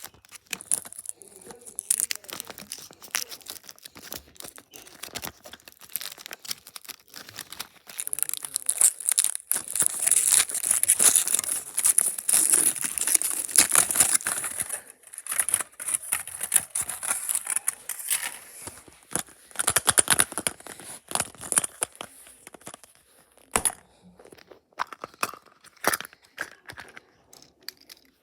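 A surprise egg's wrapper being torn open and crinkled by hand: rustling, crackling and tearing with many small clicks, loudest for several seconds in the middle.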